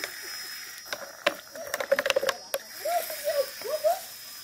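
Plastic bottle and small plastic cup clicking and crackling in the hands while lime vinegar is poured, a quick run of sharp clicks in the middle. Faint voices in the background.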